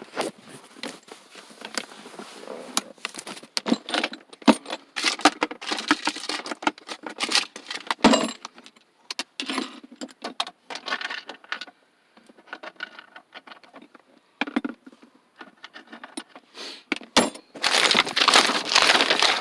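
Rummaging through a pile of loose car parts: irregular clinks, rattles and clatters as pieces are moved and handled, with a longer, louder stretch of clatter near the end.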